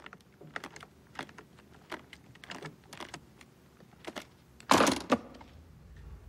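Brass combination-lock thumbwheels on a briefcase clicking as a thumb rolls them: a string of small, irregular clicks. Nearly five seconds in come two louder clacks half a second apart as the case's latches snap open.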